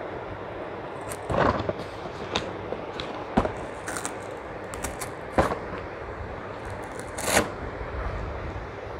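A small child opening and handling a cardboard toy box: scattered rustles and scrapes, with a few louder knocks and clicks about every two seconds, over a steady background hiss.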